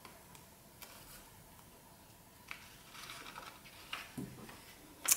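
Faint rustling and soft taps of a small sketchbook's thin paper pages being turned by hand, with a sharp click just before the end.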